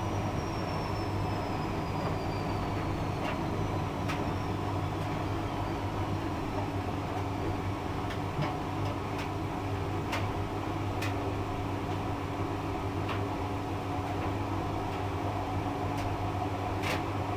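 Hotpoint front-loading washing machine running its drum motor steadily, with a low hum and a high whine that slowly falls in pitch over the first few seconds. Faint clicks come now and then.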